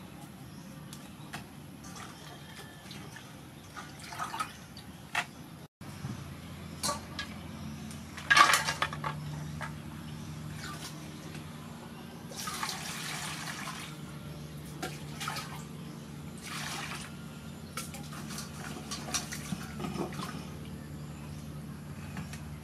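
Water splashing and dripping as lemongrass stalks are washed by hand in a stainless steel bowl. A brief louder sound comes about a third of the way in, and water pours for a second or two about halfway through.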